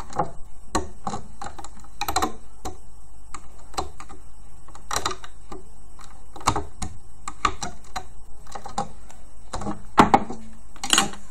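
Irregular light clicks and taps of a hook and rubber loom bands against the plastic pins of a rainbow loom as the looped piece is taken off, with a couple of louder knocks near the end.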